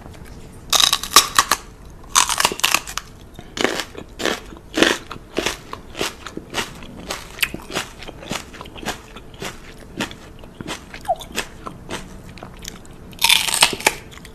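Crunching and chewing sounds close to the microphone: a run of short crisp clicks, with louder crunchy bursts about a second in, around two seconds in, and a longer one near the end.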